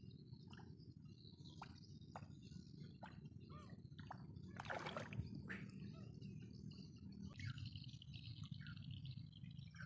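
Faint outdoor ambience: a low wind rumble with scattered short bird chirps and small drip-like ticks. A thin steady high-pitched tone runs until it cuts off about seven seconds in, and there is one brief louder rush about five seconds in.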